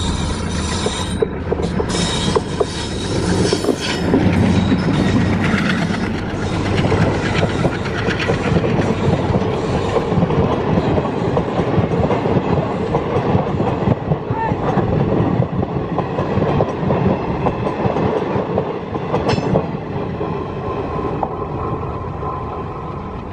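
WDM-3A Alco diesel locomotive passing close with its engine running, followed by a rake of passenger coaches rolling by, their wheels clattering over the rail joints. The noise eases off near the end as the last coach moves away.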